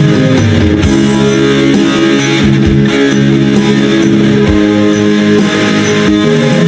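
Background music led by guitar, with bass and a steady beat.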